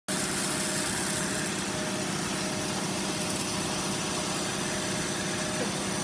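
GOLDFIST industrial rug washing machine running: electric gear motors drive the conveyor and rotating brushes while water sprays from the nozzles, a steady hum under an even hiss.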